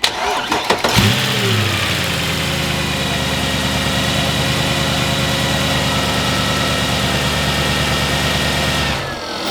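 Mercedes-AMG M156 6.2-litre V8 cranked by the starter, catching about a second in with a short rev, then idling steadily until it is shut off near the end. It runs with the accessory drive belt removed, and the idle is free of the bad noise, which is traced to a failing AC compressor clutch.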